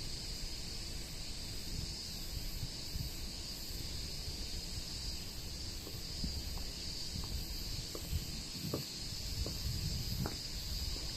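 Steady chorus of insects with wind rumbling on the microphone, and a few light taps in the second half.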